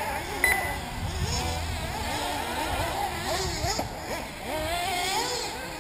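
Small two-stroke glow engines of 1/8-scale nitro RC buggies racing, their buzzing pitch rising and falling with the throttle. A sharp click sounds about half a second in.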